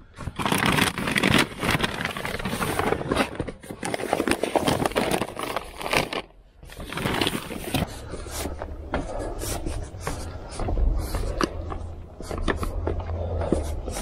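Paper grocery bags rustling and scraping as they are pulled from a car's back seat and carried. Footsteps on concrete stairs follow, a string of short knocks over a low rumble, with the paper bags crinkling.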